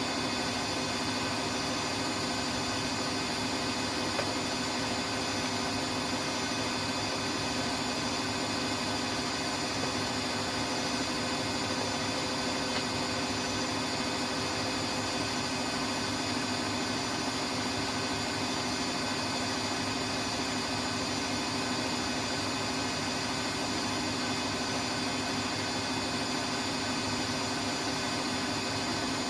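Siemens iQ washing machine running, a steady mechanical hum and whine that holds at one pitch and level throughout.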